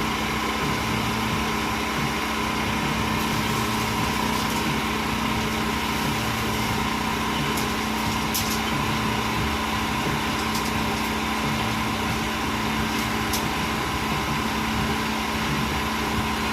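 A small engine running steadily at a constant speed, a smooth, even drone with a steady hum.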